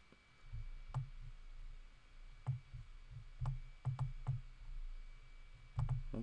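A computer mouse clicking and being dragged on a desk: a dozen or so irregular sharp clicks, each with a soft low thump, over a low hum.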